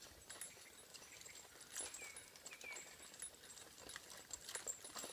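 Faint hoofbeats of a draught horse walking on a dirt forest track, a scatter of light clicks and knocks, with two short high squeaks about two seconds in.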